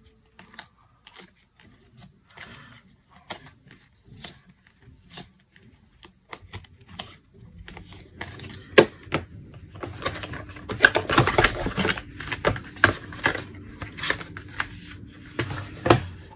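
Doorbell kit packaging and small parts being handled and unpacked: scattered sharp clicks and taps, growing busier and louder about halfway through, with rustling.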